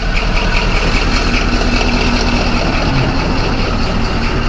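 Caterpillar D11 bulldozer's large diesel engine running steadily, freshly started after sitting idle for five months.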